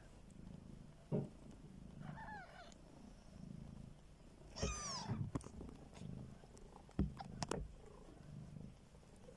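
A cat purring steadily in slow low pulses, with two high, thin mews from newborn kittens about two and five seconds in. A few sharp bumps stand out louder than the purring.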